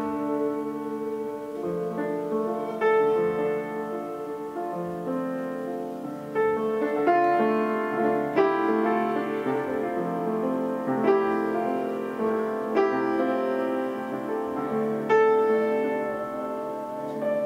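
Upright piano playing slow, spaced chords and notes, with long held tones from a bowed string instrument underneath.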